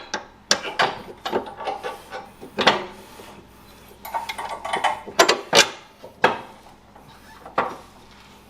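Irregular metal clanks and knocks of tools and suspension parts being handled during a coilover install, a few of them ringing briefly.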